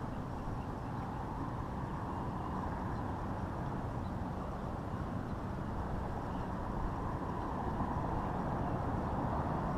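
Steady rumble of distant road traffic, with no distinct separate sounds.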